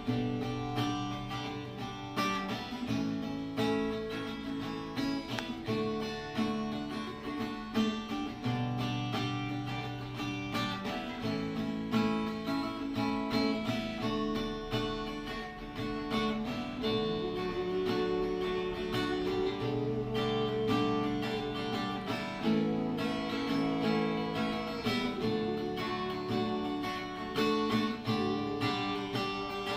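Acoustic guitar strumming and picking chords, with a hummed melody gliding over it from a little past halfway.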